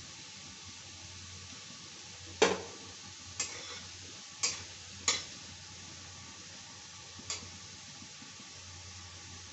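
A steel spatula strikes the side of a kadhai five times while stirring potato pieces frying in shallow oil. The first strike is the loudest. Under the strikes runs a faint, steady sizzle.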